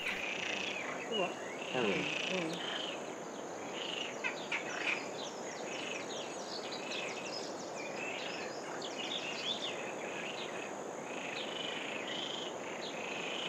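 A raucous chorus of Iberian water frogs (Perez's frogs) croaking in a reedy marsh, many short rattling calls overlapping and repeating throughout.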